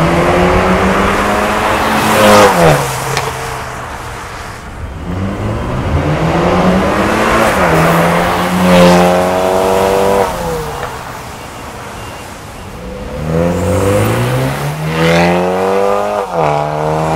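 BMW 320i's turbocharged 2.0-litre four-cylinder engine, heard through an aftermarket valved catback exhaust, accelerating hard. Three times its pitch climbs steadily as it revs, then drops sharply.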